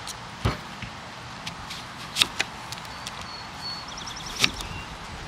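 Kitchen knife cutting through an onion onto a bamboo cutting board: a few sharp knocks of the blade on the board, the loudest about half a second in and about two seconds in.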